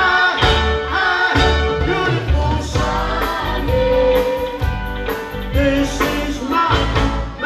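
Country band music with a steady beat: electric guitars, bass and drums playing a live song.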